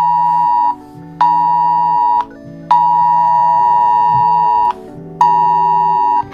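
Synthesized alert tone sounding in four long on-off blasts, the third about two seconds long and the others about a second, over deep held synth chords, in the style of an emergency-alert attention signal.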